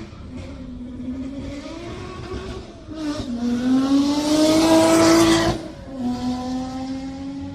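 Sports car engine accelerating hard through the gears, its pitch climbing. It shifts up about three seconds in and again about five and a half seconds in, and it is loudest just before the second shift.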